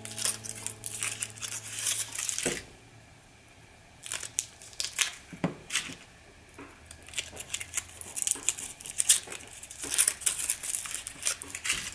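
Foil wrappers of Reese's miniature peanut butter cups crinkling and tearing as they are peeled off by hand, in bursts with short pauses between cups.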